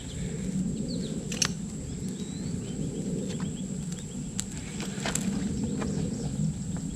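Outdoor ambience: a steady low rushing noise and a steady thin high whine, with small bird chirps and a few sharp clicks or knocks scattered through it.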